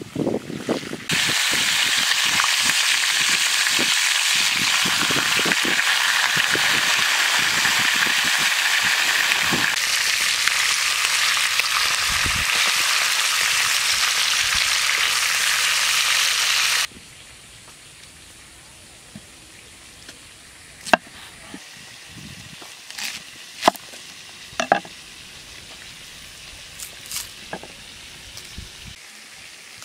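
Food frying in hot oil: a loud, steady sizzle that starts and stops abruptly, cutting off about 17 seconds in. After that it is much quieter, with a few scattered light clicks and knocks.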